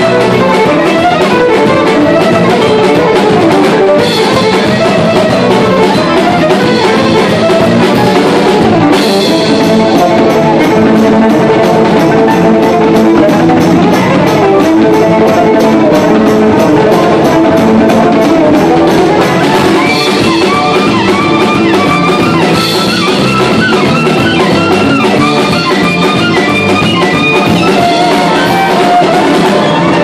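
A live band playing loud, up-tempo music: a fiddle carries the melody over a drum kit and bass guitar, with quick fiddle runs in the second half.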